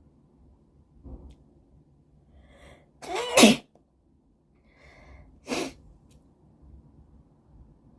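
A person sneezing twice, each sneeze preceded by a quick intake of breath; the first, about three seconds in, is the louder, and the second follows about two seconds later. The sneezes are set off by a nasal swab test.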